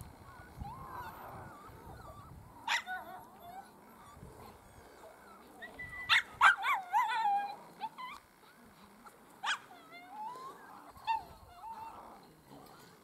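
Miniature schnauzers yipping and whining as they play, in scattered short calls with a quick loud cluster of yips about halfway through.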